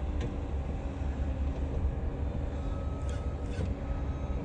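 Steady low mechanical rumble of engines running nearby, with a faint steady hum over it.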